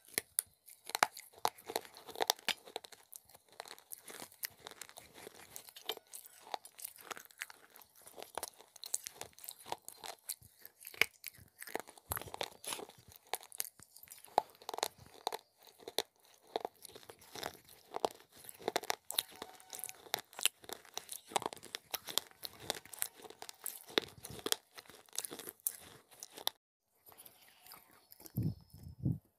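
Pieces of broken fired-clay pot being bitten and chewed close to the microphone, a dense run of sharp crunches and crackles. Near the end there is a brief pause, then a couple of dull knocks.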